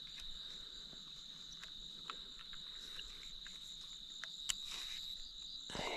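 Crickets trilling steadily on one high note, with a few faint ticks and rustles and a louder rustle right at the end.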